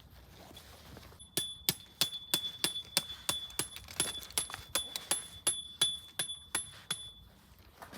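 A series of about eighteen even metal-on-metal strikes, roughly three a second, over a high ringing tone, starting about a second in and stopping near the end.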